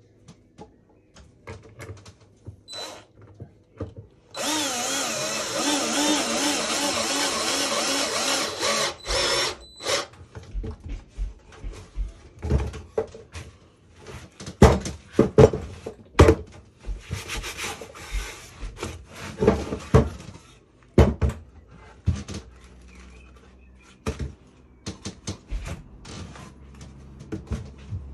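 Cordless drill running under load for about five seconds, its pitch wavering, as it drives a screw into pallet wood, then a brief second burst. It is followed by a long run of sharp knocks and wooden clatter.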